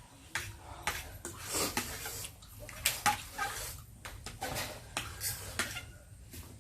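Eating spicy noodles: utensils clicking against a bowl, with short bursts of slurping.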